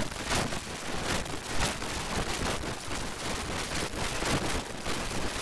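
Harsh, loud rushing noise with irregular crackles and rumbles, with no voice or tune in it.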